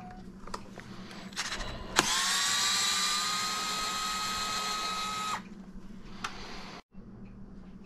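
A DeWalt cordless electric screwdriver runs for about three and a half seconds, starting about two seconds in, as a steady whine that rises slightly in pitch before stopping. It is backing out a screw on the truck's rear wing-and-arm assembly. A few light clicks come before and after.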